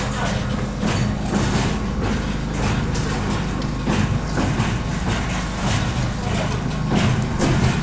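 Homemade electric concrete mixer running: a steady low hum with frequent irregular clattering knocks.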